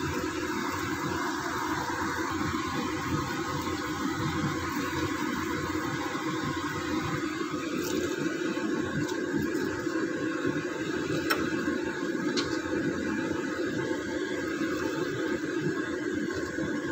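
Coconut milk cooking down into latik, the curds frying in their own coconut oil: a steady bubbling sizzle. A few light clicks about eight and eleven seconds in.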